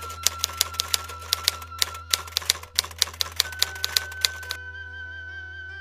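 Typewriter key-clicking sound effect, rapid irregular clicks about four or five a second, over soft background music with a long held note. The clicks stop about four and a half seconds in, leaving the music.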